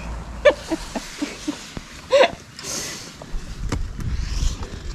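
Short non-word vocal sounds, little gasps and grunts, from a hiker scrambling up a steep granite rock slab, with a couple of sharp taps on the rock and a low rumble coming in near the end.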